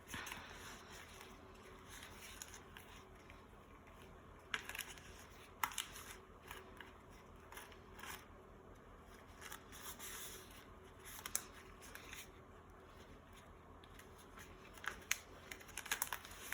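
Faint, irregular sticky crackles and squishes of hands kneading a soft, sticky dough of chocolate instant pudding and cornstarch.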